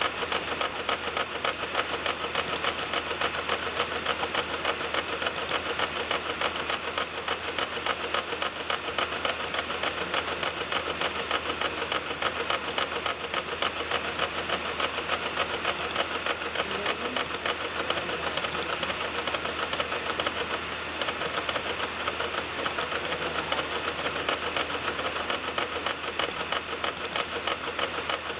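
Optical DVD drive clicking and spinning as it seeks and reads program files from a burned disc. The clicks come evenly at about three a second over a low hum, softening briefly about two-thirds of the way in.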